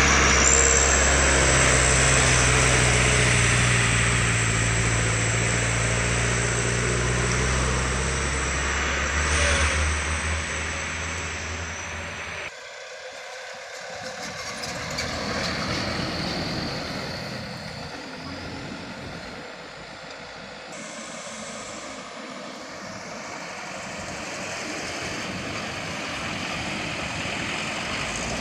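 Diesel truck engines running at full throttle as heavily loaded sugarcane trucks take a bend one after another. The first passes close and loud for about twelve seconds, then the sound cuts abruptly to quieter, more distant truck engines.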